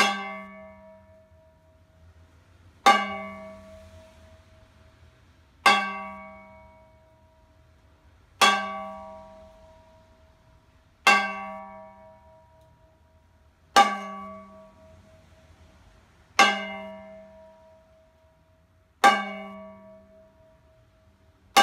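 A metal frying pan struck with a wooden stick in a slow, even beat, one hit about every two and a half to three seconds. Each hit clangs and rings on with a clear tone that fades before the next.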